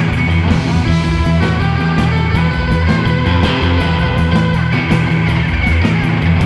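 A live instrumental surf rock band plays loud electric guitars over a drum kit, with a steady beat of drum and cymbal hits.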